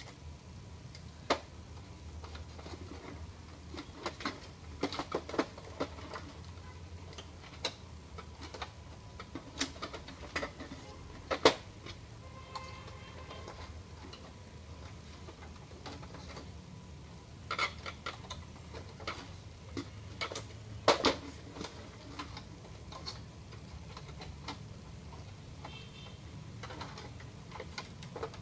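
Scattered, irregular clicks and taps of plastic parts being handled inside an opened Epson L210 inkjet printer, with a few sharper knocks, over a low steady hum.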